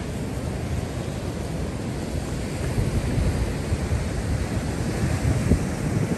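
Wind rumbling on the microphone over running vehicle engines as a car stuck in beach sand is pulled free, with surf behind.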